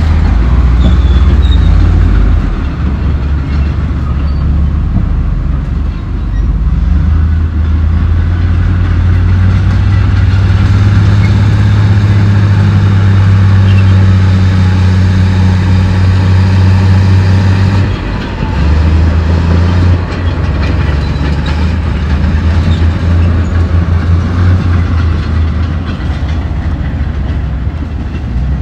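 Komatsu D68E bulldozer's diesel engine running hard under load, with the clank and rattle of its steel crawler tracks as it pushes rock. The engine drone drops briefly about two-thirds of the way through, then picks up again.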